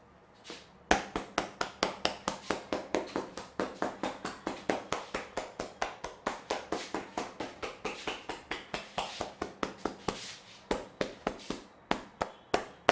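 Barber's hands striking the head in quick, rhythmic massage taps, about four or five a second, pausing briefly near the end before a few last strikes.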